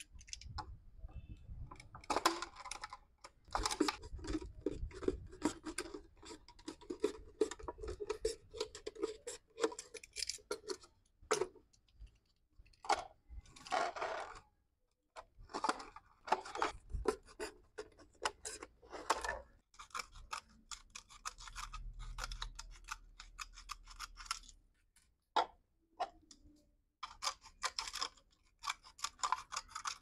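A snap-off utility knife cutting into the thin wall of a plastic soda bottle, with irregular crackling and scraping as the plastic gives and is handled. Near the end, scissors cut through the plastic.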